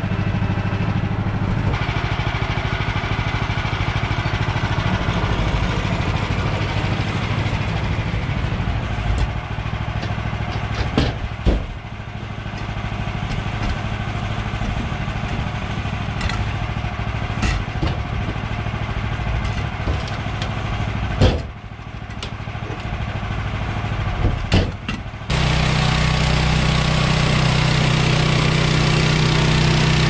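Woodland Mills portable band sawmill's gas engine running at idle, with a few knocks and clunks. About 25 seconds in it changes abruptly to the louder, busier sound of the engine at speed with the band blade cutting through a log.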